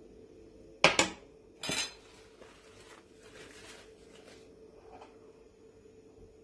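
A metal spoon clinks sharply against cookware twice in quick succession about a second in, clatters again just before two seconds, then scrapes faintly for a couple of seconds while sauce is spooned from a stainless steel pot into a glass jar.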